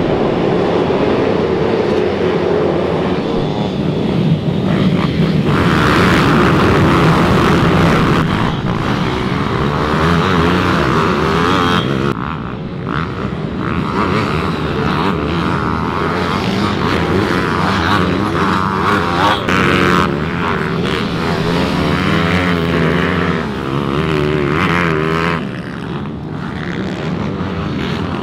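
Minibike racing engines revving hard, the note rising and falling repeatedly as the rider accelerates and shifts, with a few brief dips in level.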